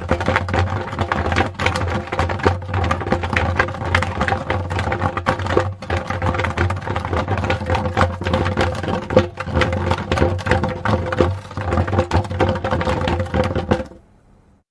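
Wooden barrel dragged along the ground: a continuous scraping rattle packed with small knocks, which stops suddenly near the end.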